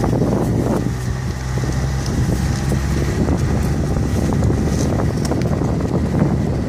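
A car driving slowly over a rough forest track: a steady low engine drone with tyres crunching over leaves, twigs and stones in scattered clicks, and wind buffeting the microphone.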